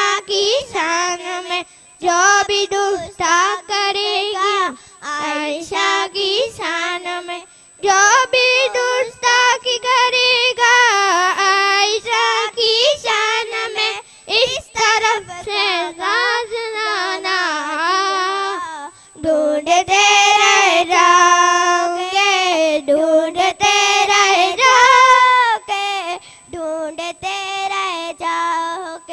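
Young girls singing a Kutchi naat (Islamic devotional song) unaccompanied into a microphone, in melodic phrases with wavering held notes and short breaks between lines.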